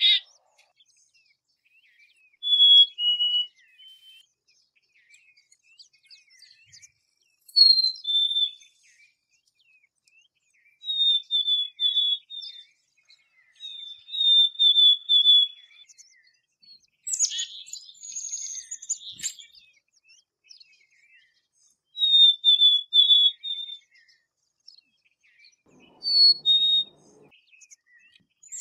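Black-capped chickadee calling: short groups of high whistled notes every few seconds, several of them a higher note falling to a lower one, with one harsher, noisier call in the middle.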